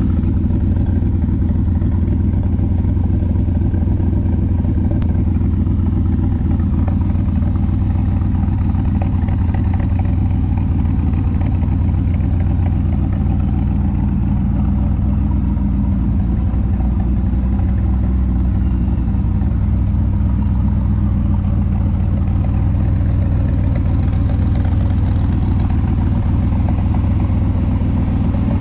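The V8 engine of a custom Mustang GT350 convertible with Holley Sniper EFI, idling steadily through its exhaust.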